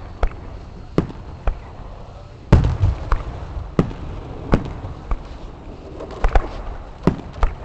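Fireworks going off: about a dozen sharp bangs of bursting shells at irregular spacing. The loudest comes about two and a half seconds in, with a brief low rumble after it, and several bangs land close together a little past six seconds.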